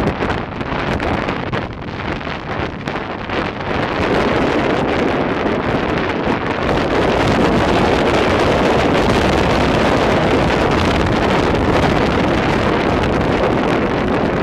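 Heavy wind noise on the microphone of a moving MG car, with the car running underneath. The wind gets louder about four seconds in and then holds steady.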